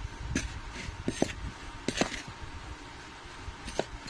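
A spoon stirring ground spice powders in a bowl, clinking and scraping against the bowl at irregular moments, with a quieter stretch just after the middle.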